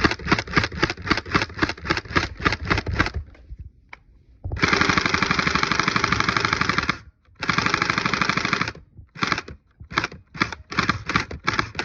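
Battery-powered gel ball blaster (Orbeez gun) firing: a string of rapid shots about seven a second, a brief pause, then two long unbroken full-auto bursts, and a few short bursts and separate shots near the end.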